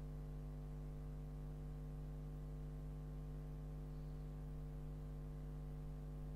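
Steady electrical mains hum, a low buzz with a stack of overtones, over a faint hiss.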